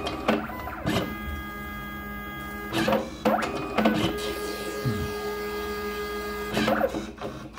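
Smart31 PVC ID card printer at work on a card: a steady mechanical hum with short whirs and clicks of the card-feed mechanism about a second in, around three to four seconds in, and near the end.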